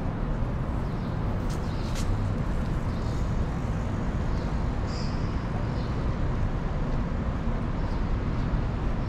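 Steady city street traffic noise from cars passing along a downtown road, with a few short high chirps, one about five seconds in.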